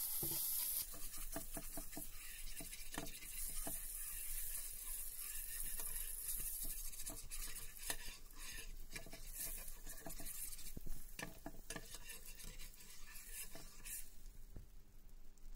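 Butter melting and sizzling in a hot flat pan while a spatula spreads it, with frequent light scrapes and taps of the spatula on the pan.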